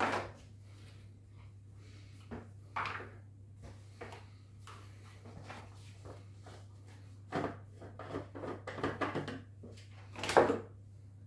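Hard plastic reverse-osmosis membrane housings and fittings being handled and set down on a table: scattered knocks and clatters, a busy run of them about eight to nine seconds in, and plastic packaging rustling loudest about ten seconds in. A steady low hum sits under it all.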